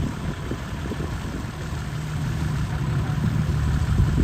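Heavy diesel engine of earthmoving machinery running steadily at low revs, with a rough low rumble.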